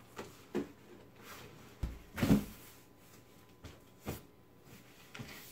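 Cardboard boxes being handled: a heavy boxed cat tree is pulled out of its shipping carton, with a run of thumps, knocks and cardboard scuffing, the loudest thump just over two seconds in.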